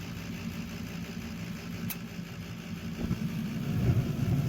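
Gas furnace running with a steady low mechanical hum. There is a single sharp click about two seconds in, and the low rumble grows louder from about three seconds in.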